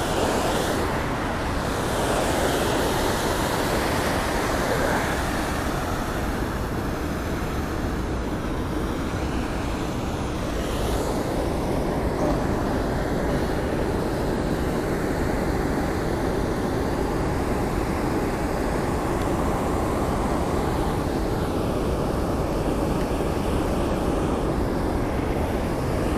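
Steady rushing of river water pouring over a low concrete dam, an even, unbroken roar of white water.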